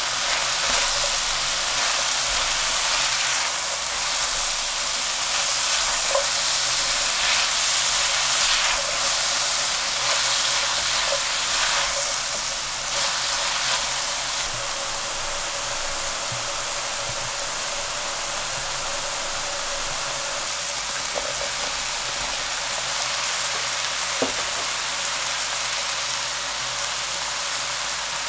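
Diced carrot and leek sizzling as they fry in a stainless steel sauté pan while being stirred with a silicone spatula. A steady hiss that is a little louder in the first half and eases slightly after that.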